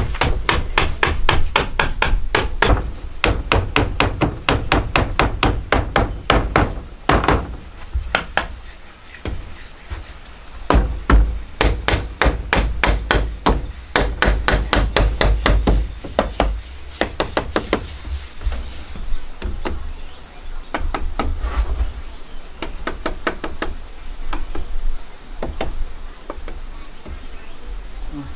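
Hammer blows on wood, struck in quick runs of several a second with short pauses between them.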